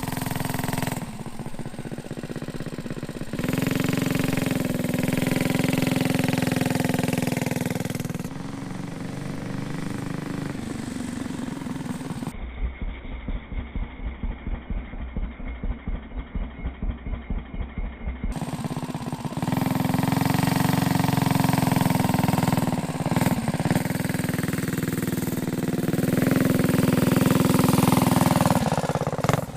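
Predator 212cc single-cylinder four-stroke engine on a mini trike, revving up and dropping back several times as it accelerates and slows during brake testing. A lower, pulsing stretch of running comes in the middle.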